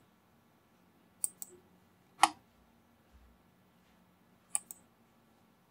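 Computer mouse button clicks: a quick press-and-release pair about a second in, a single louder click a second later, and another pair near the end.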